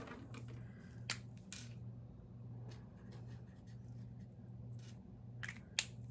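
Sparse light clicks and taps of pens being handled at a desk, about five in all, over a low steady hum.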